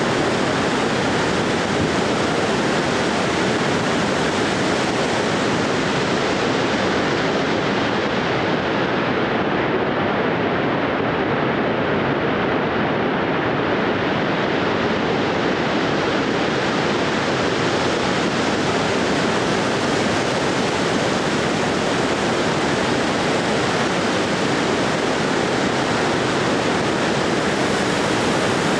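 Steady, even rushing noise, like running water, with no rhythm or pitch. The top of the hiss is muffled for a few seconds in the middle.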